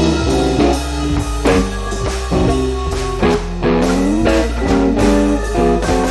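Background music: guitar-led instrumental over bass and drums with a steady beat.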